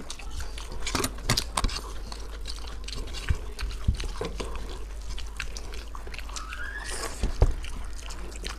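Close-miked eating sounds of two people eating rice and curry with their hands: wet chewing, lip smacks and short clicks, with fingers working the food on steel plates.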